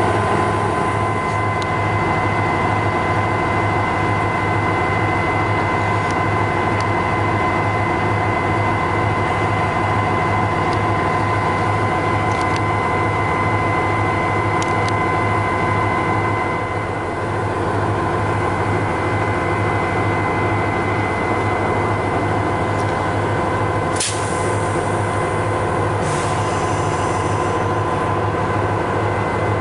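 South Shore Freight diesel locomotive running steadily, a constant low drone with a high steady whine over it. About 24 seconds in there is a single sharp bang, then a brief high squeal a couple of seconds later.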